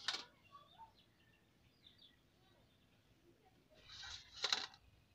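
Handling sounds of cooking by hand: a sharp click near the start, then about four seconds in a short rustle ending in another sharp click, as thick batter is scooped from a steel bowl and a banana leaf is handled. Faint bird chirps in the background.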